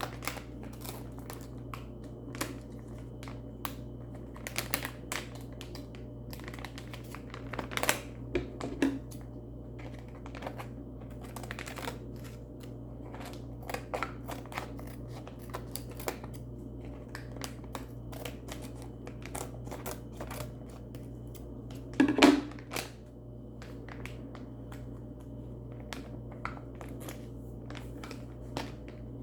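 Irregular small clicks, taps and crinkles of plastic packaging and toys being handled, with a louder crinkling rustle about 22 seconds in, over a steady low hum.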